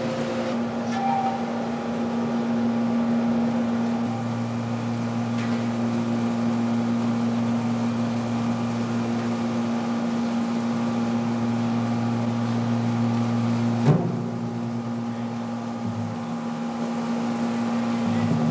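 Steady machine hum made of several held tones, with a lower drone joining about four seconds in and dropping out after a sharp click about fourteen seconds in.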